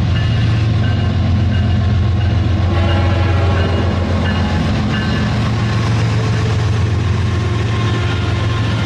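Rail King toy train running, a steady low hum.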